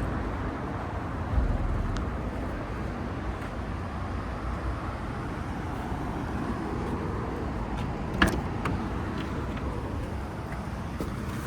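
A newly cut key being tried on a 2007 Porsche 911's door: a dull thump a little over a second in and a sharp click about eight seconds in, over a steady low rumble like traffic.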